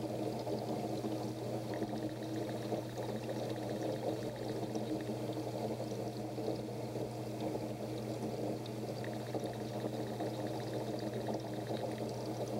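Aquarium water steadily bubbling and churning over a constant low hum.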